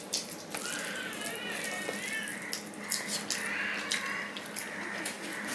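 Wet squelching of rice being mixed with curry by hand on a steel plate, with chewing and lip-smacking clicks.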